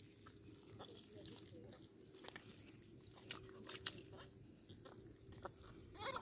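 Hands digging and squeezing through wet mud: faint squelching with scattered small clicks and crackles.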